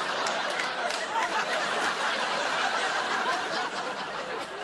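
Audience laughing, a dense steady wash of laughter.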